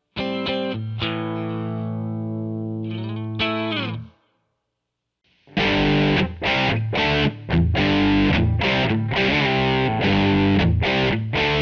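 Electric guitar played direct through a Line 6 POD 2.0 amp modeler. A sustained chord rings, slides down in pitch and stops about four seconds in. After a second of silence, a heavily distorted patch plays a choppy, stop-start rhythm riff.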